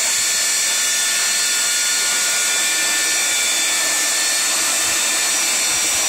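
Shop vacuum running steadily, its motor whining and air rushing through the hose as it sucks up dirt from a boat deck.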